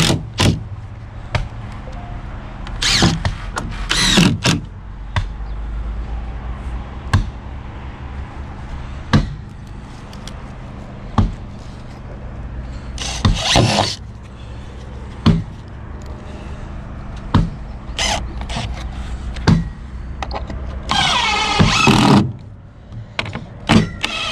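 Cordless drill-driver whirring in short bursts as screws are driven into timber formwork bracing, between sharp knocks about every two seconds. A steady low machine hum runs underneath.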